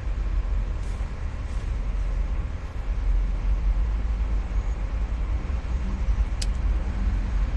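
Steady low rumble heard inside a car standing in traffic, its engine idling. There is one brief sharp tick about six and a half seconds in.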